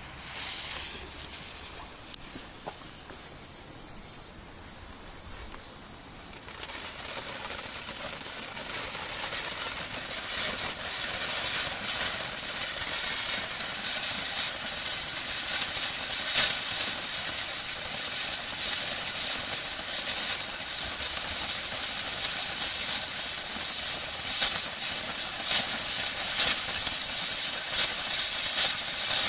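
Nico Riesenfontäne ground fountain firework burning. A fainter hiss for about the first six seconds, then a loud, steady spraying hiss that grows louder, with frequent crackles.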